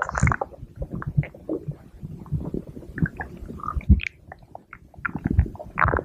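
A person's stomach growling: a steady run of short, irregular gurgles and rumbles, with a few higher, squeakier gurgles mixed in.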